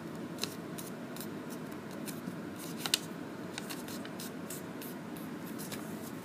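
A sheet of origami paper rustling and crackling as it is handled and folded, with many irregular sharp crackles, the loudest about three seconds in.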